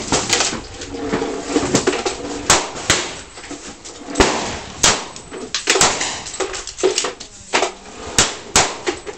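Gunshots on a pistol firing line: about a dozen sharp cracks at irregular intervals, some only a fraction of a second apart, each with a brief echo. A 9mm Beretta 92 pistol is among the guns firing.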